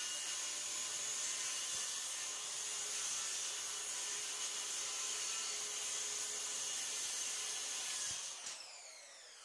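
Circular saw cutting through a plywood sheet with a steady whine; about eight seconds in the cut ends and the blade spins down, its pitch falling.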